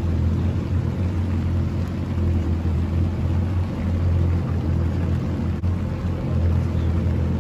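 Boat engine running steadily at low speed, a constant low hum.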